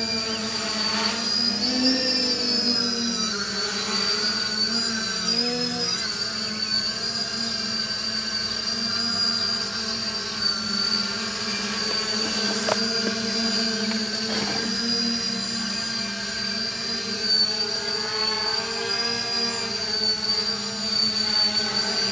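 Six Avroto 770kv brushless motors spinning Graupner 11x5 propellers on a 900 mm VulcanUAV hexacopter in flight: a steady buzzing drone with a high whine, its pitch wavering up and down as the craft is steered.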